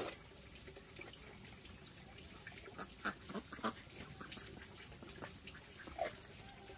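A cleaver scraping and slicing into a hand-held chayote: a few soft, short strokes scattered through, the strongest a cluster about three seconds in and one near the end.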